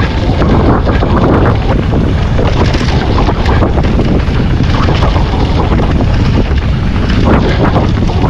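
Wind rushing over the camera microphone as a mountain bike rides a trail at speed, over a constant low rumble of tyres on the ground and frequent quick rattles and knocks from the bike over rough terrain.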